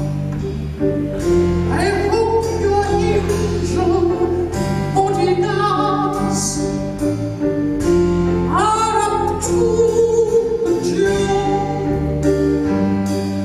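A live cabaret band playing. A high male falsetto voice sings drawn-out phrases over sustained keyboard chords, a bass line and drums.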